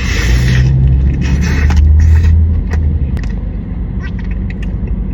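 Close-miked eating: handling and biting into a chicken cheesesteak, with short rustling crunches and clicks over a heavy low rumble that eases off about three seconds in.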